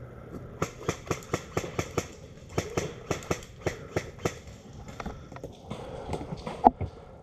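Running footsteps, about four quick steps a second, stopping after about four seconds, then a few more, with one louder sharp click near the end.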